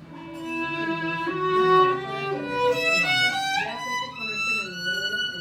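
Live violin playing a melody of held notes over acoustic guitar and double bass; a little past the middle the violin slides upward in pitch.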